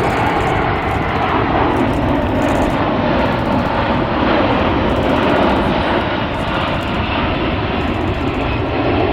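Airplane engine noise from a fixed-wing aircraft flying past, a loud, steady rushing drone.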